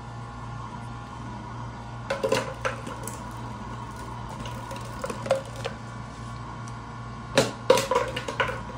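Kittens playing on a tiled floor, with a small toy and their paws making sharp clicks and knocks in three short clusters, the loudest near the end, over a steady hum.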